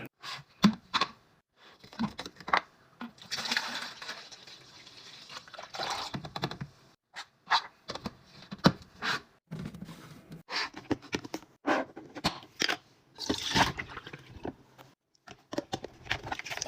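Clatter and scraping of containers and packaging being handled and set down while a refrigerator is restocked, with knocks, rustling and stretches of liquid pouring or sloshing.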